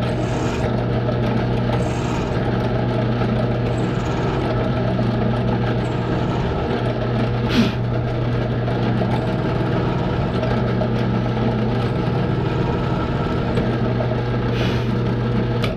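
Electric drill running steadily as it bores deeper into a stripped steel Allen screw head and into the aluminium servo horn around it, with a single brief tick about halfway, then stopping abruptly at the end.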